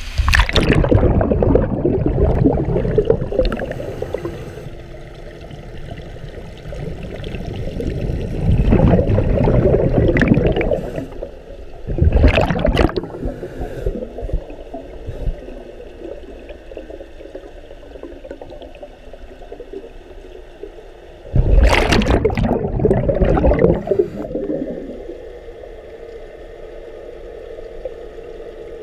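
A scuba diver's exhaled bubbles gurgling past a head-mounted GoPro underwater, in four loud bursts a few seconds long with quieter breathing stretches between. A steady hum runs under the last few seconds.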